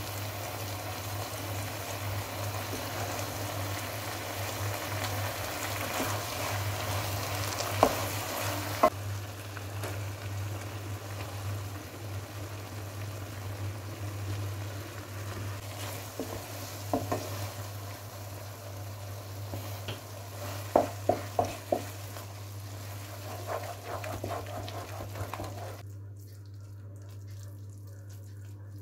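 Risotto sizzling and simmering in an aluminium pan while a wooden spoon stirs through the rice, with a steady low hum underneath. A few sharp knocks of the spoon against the pan, including a quick run of three about two-thirds of the way in; the sizzle fades out near the end.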